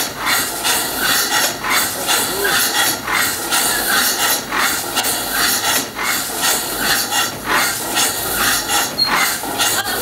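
Homemade steam engine running under steam, its exhaust chuffing in a quick, even rhythm with a constant hiss of escaping steam.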